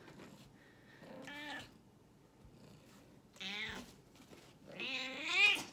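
Domestic cat meowing three times, the last call the longest and loudest, rising then falling in pitch. It sounds upset at being put down.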